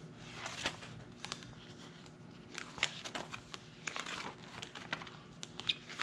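Plastic sheet protectors in a three-ring binder rustling and crinkling as pages are turned, with a run of short sharp crackles.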